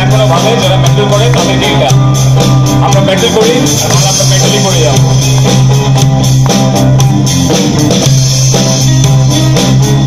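A live band playing an unplugged rock song: guitars and a drum kit, with a voice singing over them.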